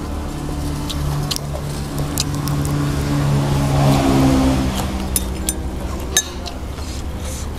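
A motor vehicle passing by: a steady engine hum that swells to a peak about halfway through and then fades. A few light clinks of chopsticks and a spoon against ceramic bowls come over it.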